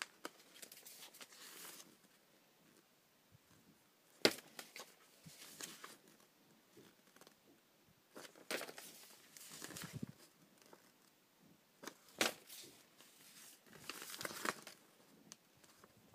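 Sheets of magazine paper rustling and crinkling in irregular bursts as a stack of pages is handled and leafed through, with a sharper crackle about four seconds in.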